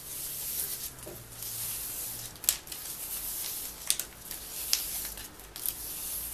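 Plastic gift ribbon rustling and swishing as it is wound around the fingers into bow loops, with a few sharp crinkles.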